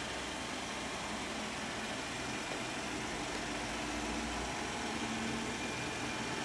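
2014 Chevrolet Traverse's 3.6-litre V6 idling steadily.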